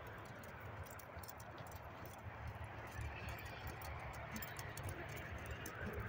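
A horse cantering on a sand arena: soft, muffled hoofbeats over a low rumble, with scattered light ticks throughout.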